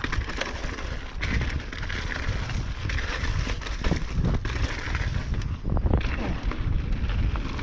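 Mountain bike rolling over rough trail, with knocks and rattles from the bike and tyres on the ground, and wind rumbling on the microphone.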